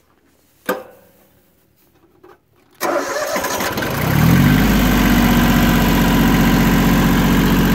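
A sharp click, then about three seconds in the Yanmar YM1602D tractor's diesel engine cranks briefly on the starter, catches with a short rise in pitch and settles into a steady, smooth idle.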